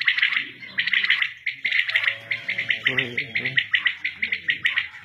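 Common quail calling: rapid runs of sharp, high chirps repeated in bursts, with a lower pitched call under them in the middle.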